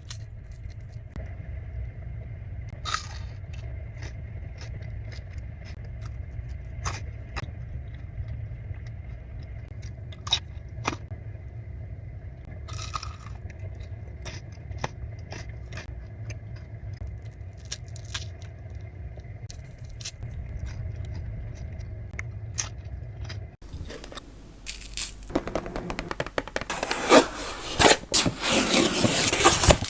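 Close-miked chewing of Ferrero Rocher chocolates, with scattered crisp crunches of the wafer shell and hazelnut over a low steady hum. About three-quarters of the way through the sound cuts, and loud crinkling of the gold foil wrapper being unwrapped follows.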